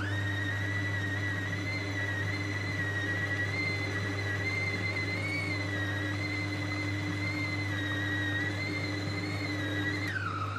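Siemens 450 W food processor motor running with a steady whine as it blends ground pork and beef into a smooth paste. The pitch steps up right at the start as it is switched to a higher speed, and drops back near the end as it is turned down.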